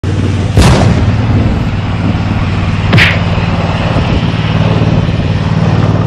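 Lawn tractor engine running steadily while it plows snow with a front blade, with two loud bangs, one about half a second in and one about three seconds in.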